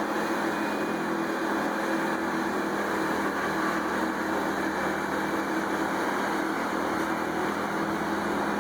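A large wood chipper running steadily, a constant engine and machine drone with no change in pitch or load.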